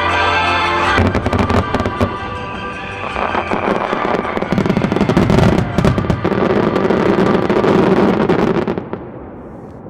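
Fireworks finale: after a second of accompanying music, a dense barrage of crackling and popping shells, loudest in its last few seconds, cuts off sharply about nine seconds in.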